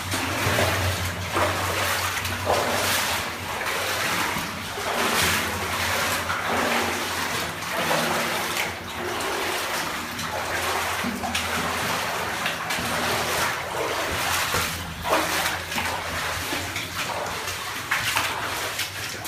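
Footsteps splashing through shallow water on a mine tunnel floor, about one step a second, over a constant wet trickling noise.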